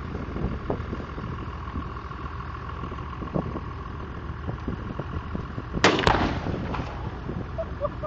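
Tannerite charge (2.5 lb) packed in a washing machine detonating, set off by a rifle shot: a sharp double crack about six seconds in, followed by a rumble that dies away over about a second. A steady low background rumble runs underneath.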